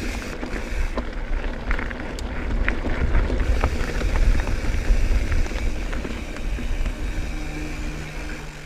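Wind rushing over the camera microphone and mountain-bike tyres rolling on a dirt and rock trail, with scattered sharp clicks and rattles from the bike going over rough ground. A steady low hum comes in near the end.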